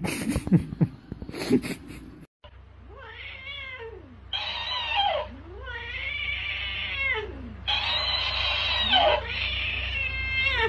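A cat yowls at a talking hamster toy. Long rising-and-falling yowls trade back and forth with brighter, higher-pitched copies, the toy playing each yowl back, about five calls in all. A few clattering knocks come before it in the first two seconds.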